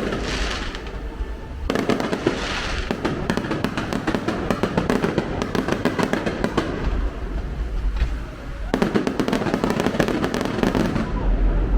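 Fireworks going off in a rapid barrage, many sharp cracks and crackles over a deeper booming, in several volleys separated by short lulls.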